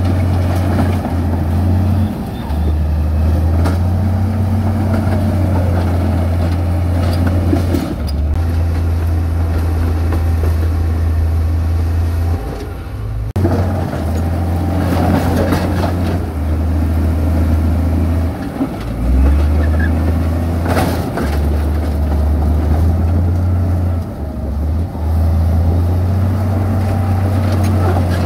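Heavy diesel construction machinery running, a deep engine drone that rises and falls in steps with the load, with a few metallic clanks.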